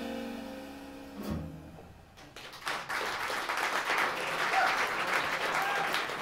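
A jazz band's held final chord of trumpet and tenor saxophone fades out, closed by a low hit about a second in. After a brief hush, audience applause starts at about two and a half seconds and keeps going.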